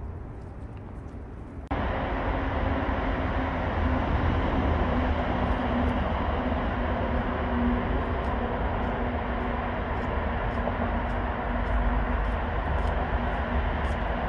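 Steady rumble of vehicle noise that cuts in suddenly about two seconds in, with a faint low hum running under it.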